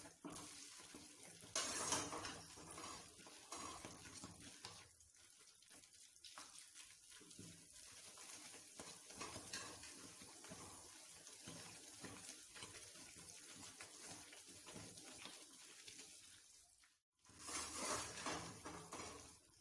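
Wooden spatula stirring and scraping thick Mysore pak batter of gram flour, sugar, oil and ghee in a pan on the stove, the hot mixture bubbling and sizzling as it froths. The stirring gets louder about two seconds in and again near the end, just after the sound cuts out for a moment.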